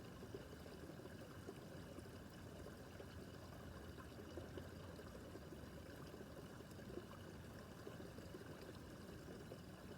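Small brook babbling and trickling over stones, a faint steady flow of water.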